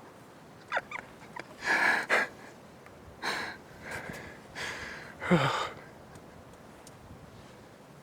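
A man breathing hard: a series of heavy, gasping exhales, the loudest about five seconds in ending in a short voiced sigh.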